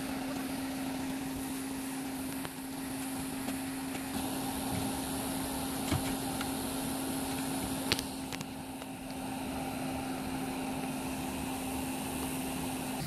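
A vehicle idling with a steady, even hum, and a couple of short knocks about six and eight seconds in as plastic traction boards are pushed against a tyre in sand.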